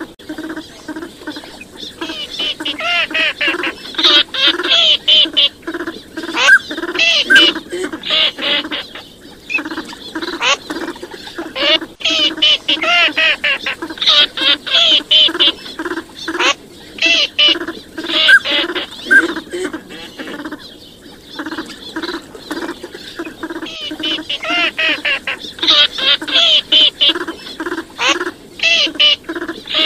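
Recorded calls of teal and other wild ducks, played as a hunting lure: a steady string of low quacking calls about twice a second, with bursts of higher, busy calling that come back about every ten to twelve seconds, as in a looped recording.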